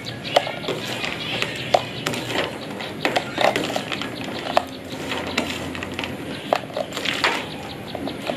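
Close-up crunching and chewing of deep-fried peanuts, with irregular sharp clicks of a spoon against a plate.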